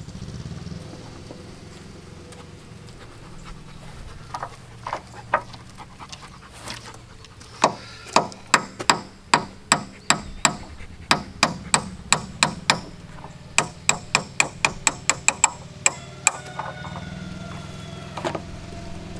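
A hammer tapping a Delrin hinge pin insert into a Jeep Wrangler JK door hinge: a few light knocks, then a run of sharp taps about two to three a second for roughly eight seconds, with one last tap near the end. The insert is a tight fit in the hinge hole.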